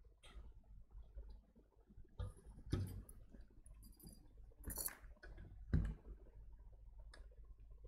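Scattered clicks and knocks as a computer power supply's circuit board and wiring are handled against its sheet-metal case and a rubber work mat, the loudest knocks about three seconds in and near six seconds.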